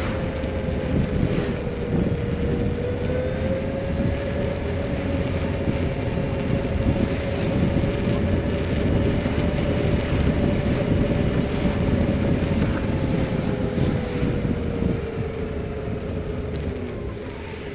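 Engine of the vehicle carrying the camera, cruising at a steady hum, with wind rumbling on the microphone. The engine's pitch rises a little early on, holds, then sinks slowly near the end as it slows down.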